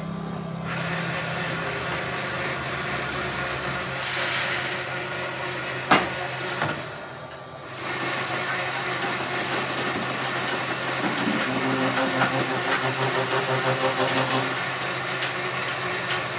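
Manual metal lathe running with a steady motor hum. There is a sharp knock about six seconds in. In the second half the turning tool cuts the face of a spinning steel workpiece, adding a rough scraping cutting noise over the hum.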